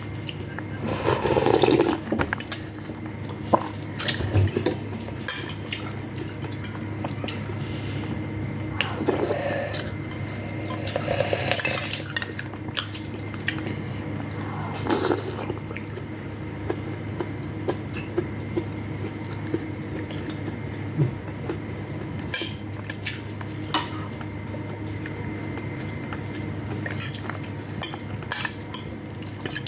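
Spoon clinking and scraping against a bowl while eating, a string of light irregular clicks, over a steady low hum.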